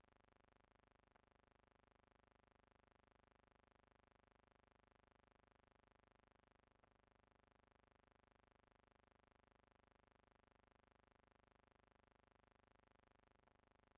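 Near silence: a faint steady hum of an old film soundtrack, with a few soft clicks.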